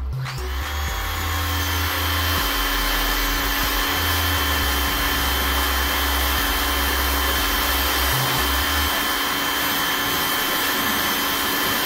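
Electric pressure washer motor starting up and running steadily with a constant whine.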